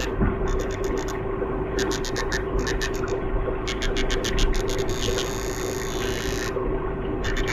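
Danionella cerebrum, a tiny fish, making loud rapid clicks by alternating compressions of its swim bladder, heard underwater. The clicks come in quick bursts of several a second, and about two-thirds of the way in they run together into a dense buzz for about a second and a half, over a steady low hum.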